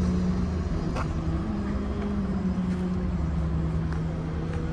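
A motor vehicle's engine running steadily, a low rumble under a hum that rises slightly in pitch about a second and a half in and settles back.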